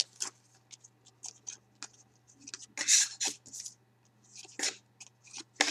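Hockey trading cards sliding and rubbing against one another as they are flipped through by hand: a series of short scraping swishes, the loudest about three seconds in and again near the end.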